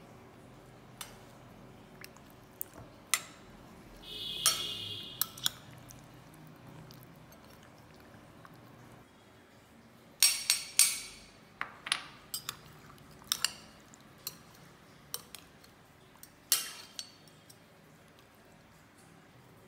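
A metal spoon clinking and tapping against a glass bowl while raw chicken is seasoned: scattered sharp clicks, a short scraping burst about four seconds in, and a quick run of clinks from about ten seconds in.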